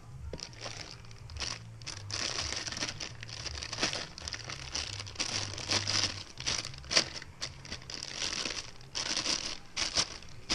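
Plastic packaging crinkling and crackling in irregular bursts as it is handled and unwrapped.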